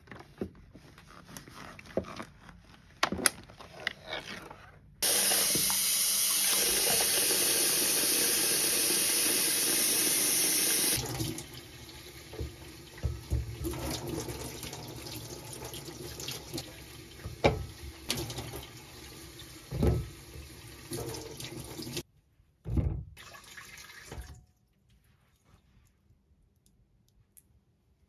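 Kitchen tap running full into a stainless steel sink for about six seconds, then cutting off. Quieter water sounds and several knocks follow as a sweet potato is handled in a rice cooker's inner pot with a little water, and it falls quiet shortly before the end.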